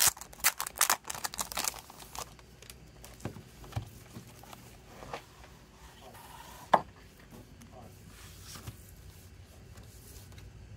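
Thin clear plastic wrap being peeled and crinkled off a CD package, rapid crackling for about the first two seconds. Then a few light handling taps and one sharp click of the plastic jewel case a little over halfway through.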